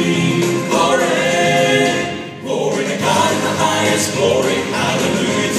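Choir singing a gospel Christmas song, holding long notes, with a brief dip in level a little over two seconds in.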